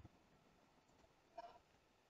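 Near silence: faint room tone, with one faint short click about one and a half seconds in.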